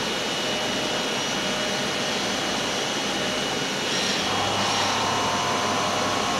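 Hermle C 52 UMT five-axis mill-turn machining center running a job behind its closed doors: a steady rush of machine and coolant-spray noise with a constant high whine. About four seconds in, a cluster of higher tones and a low hum join.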